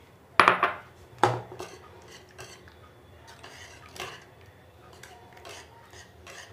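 Stainless-steel wire whisk beating cream into thick custard in an aluminium saucepan, its wires clinking and scraping against the pan. Two louder clanks come in the first second and a half, then lighter, irregular taps and scrapes.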